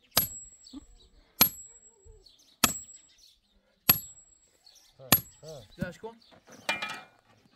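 A sledgehammer striking the head of a steel bar held upright in stony ground: five ringing metal-on-metal blows about a second and a quarter apart, driving the bar in to open a hole. A man's voice follows briefly near the end.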